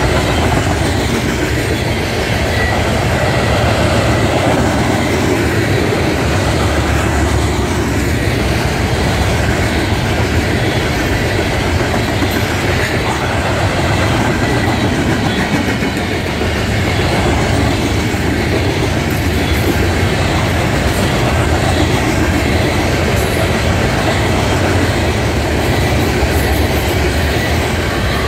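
Loaded coal hopper cars of a freight train rolling past close by, their steel wheels running over the rails in a loud, steady rumble.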